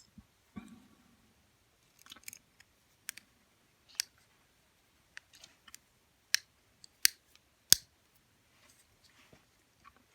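Sharp metallic clicks and light scrapes of a small wire pick being worked into a spring-loaded lever padlock, scattered and irregular, the three loudest clicks coming about 0.7 s apart in the second half.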